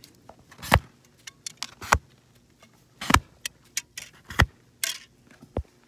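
Arrows being pulled out of a bag target and clacking against each other: about five sharp knocks with lighter clicks and rattles between them.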